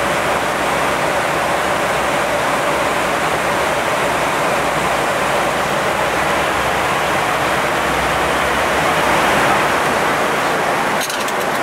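Steady rushing air noise on the flight deck of an Airbus A321-200 in flight: an even, unbroken roar of airflow and aircraft noise.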